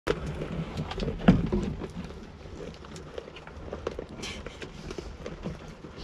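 Young goats jostling with their heads in a wooden feeder: scattered knocks and clatter, with one louder bump about a second in and a short rustle just after four seconds.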